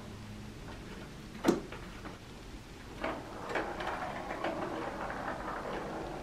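Cat batting a ball around a plastic circular track toy: one sharp knock about a second and a half in, then from about three seconds a run of irregular clicks and rattles as the ball rolls and knocks in the track.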